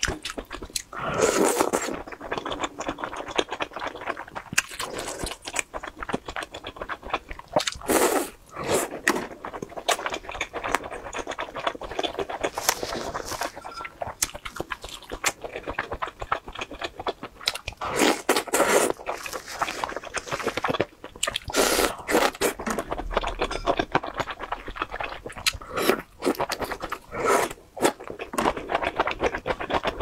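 Close-miked chewing and biting of oden fish cakes and fish balls: a steady stream of small mouth clicks with louder bites every few seconds.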